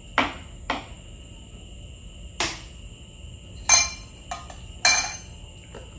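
Shell of a balut egg tapped against a hard surface to crack it open: a series of sharp taps, two close together at first, then one, then a louder cluster about four to five seconds in that ends in a crisp crackle of breaking shell.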